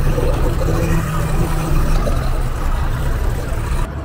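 Mercury 250 EFI V6 two-stroke outboard idling with a steady low rumble, drowned out by a quieter scene just before the end.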